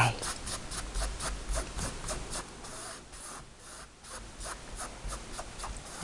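Flat paintbrush scrubbing acrylic paint onto a damp stretched canvas in quick back-and-forth strokes, several a second. The strokes ease off about halfway through, then pick up again.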